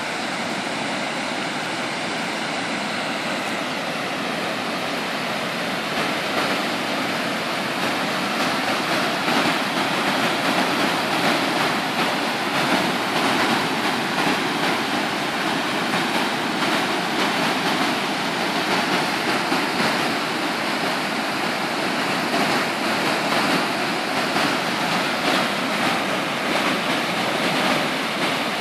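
High water of a rain-swollen river pouring over a low concrete weir, a steady rush of churning white water that grows a little louder about six seconds in.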